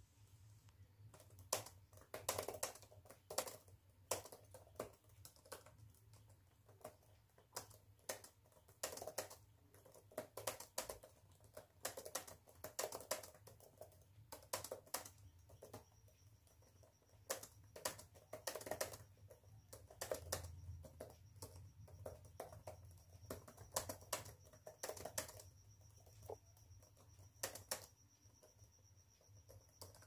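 Fast touch typing on a Dell laptop's built-in keyboard, about 60 words a minute: a quick, irregular patter of key clicks. A low steady hum runs underneath, and a faint high steady tone joins about halfway through.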